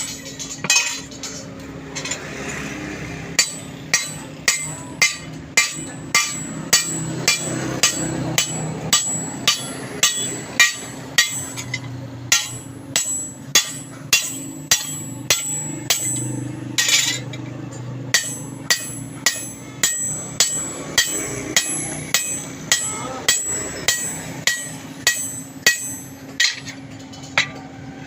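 Hammer blows on steel as the blade of a toka (chaff-cutter) machine is worked, about two sharp ringing strikes a second, pausing briefly near the start. A steady low hum runs underneath.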